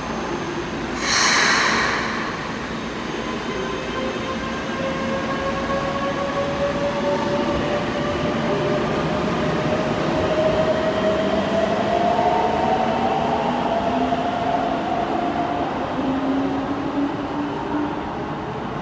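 Keikyu 600 series train's Mitsubishi GTO-VVVF inverter and traction motors whining as it pulls away, several tones climbing steadily in pitch as it accelerates, echoing in an underground station. A short, loud hiss comes about a second in.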